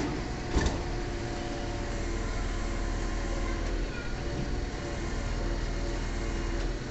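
Truck-mounted crane's engine running steadily with a hum and low rumble, with one sharp knock about half a second in.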